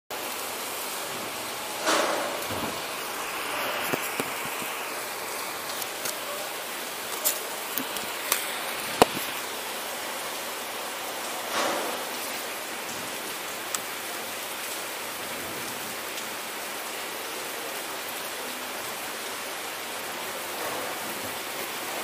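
Steady hiss of falling rain, with a scattering of sharp ticks, most of them between about seven and nine seconds in, and a few brief louder swells.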